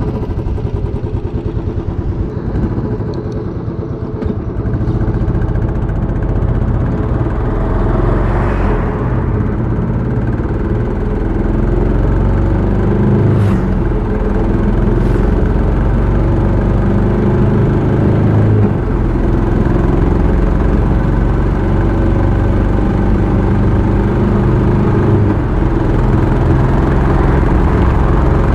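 Royal Enfield Classic 350 BS6's single-cylinder engine and exhaust, idling at first, then pulling away and running steadily on the road.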